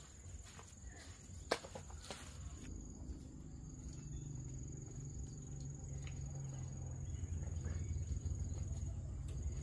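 Steady high insect trill, with a low engine hum that sets in a few seconds in and grows louder; a single sharp click about one and a half seconds in.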